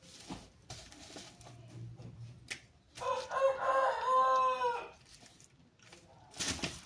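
A rooster crowing once: a single drawn-out crow of nearly two seconds, starting about three seconds in.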